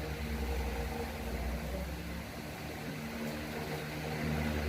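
A small motor or fan hums steadily with a low tone; the lowest part dips about halfway through and comes back near the end.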